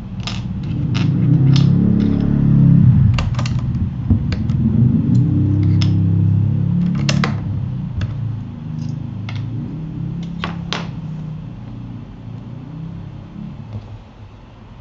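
Irregular sharp plastic clicks of a mechanical keyboard's parts being handled, about twenty over ten seconds, over a loud low rumble that swells early and slowly fades.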